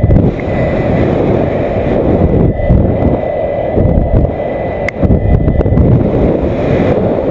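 Wind buffeting the microphone: a loud, rough low rumble that gusts up and down, with a brief dip just before five seconds in.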